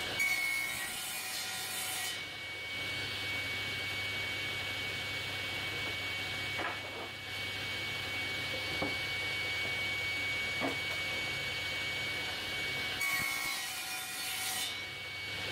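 Table saw running steadily with a constant high whine, cutting into a plywood piece pushed through on a crosscut sled to nibble out a notch. The louder passes through the blade come right at the start and again near the end.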